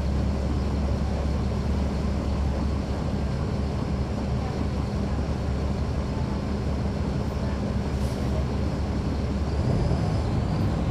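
Caterpillar C13 ACERT inline-six diesel of a 2009 NABI 40-SFW transit bus idling steadily while the bus stands still, heard from inside the bus.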